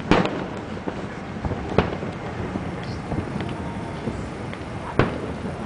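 Fireworks going off in the sky: three sharp bangs, the first just after the start, the next under two seconds in and the last about five seconds in, each with a short echoing tail, over a steady background noise.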